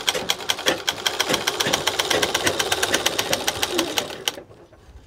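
Mechanical sewing machine stitching fabric: a rapid, even clatter of needle strokes that stops about four seconds in.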